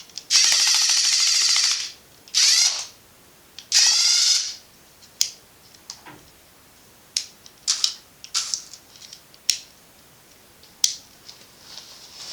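Small electric motors and plastic gear trains of a Lego Technic RC excavator whirring in three short bursts of different lengths, followed by a run of sharp plastic clicks and ticks from the mechanism.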